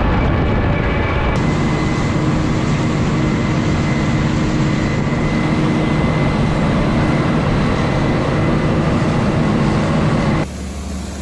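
Heavy farm machinery running loudly and steadily, with a constant low hum. About ten seconds in it gives way to a quieter engine idling.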